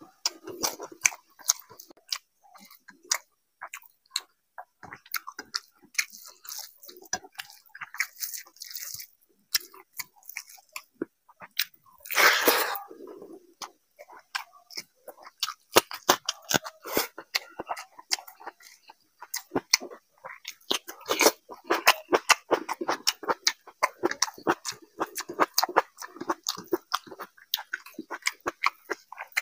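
Close-miked chewing and lip smacking as a man eats rice and chicken curry by hand, a steady run of wet clicks and chews. There is one louder, longer noisy moment a little before halfway through.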